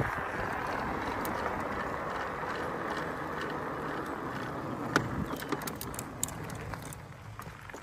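Bicycle rolling fast on asphalt: a steady rush of tyre and wind noise that eases off near the end as it slows, with scattered sharp clicks and rattles in the last few seconds.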